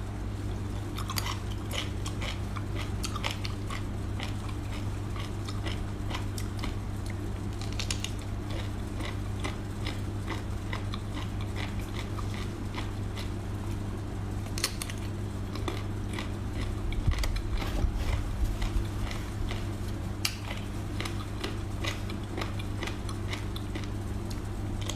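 Close-up biting and chewing of crunchy food: many crisp crunches and clicks, a little louder for a couple of seconds past the middle, over a steady low hum.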